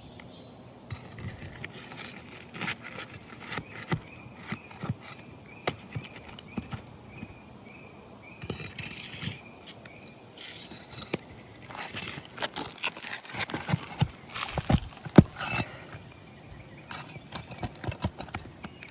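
Irregular scraping, clicking and knocking of a metal pry bar working asphalt 3-tab shingles loose and pulling them off a roof, with the busiest run of scrapes and knocks in the second half.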